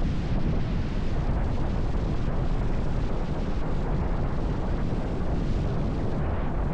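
Steady, loud rushing rumble of an ocean racing yacht under sail: water rushing past the hull, with wind buffeting the microphone.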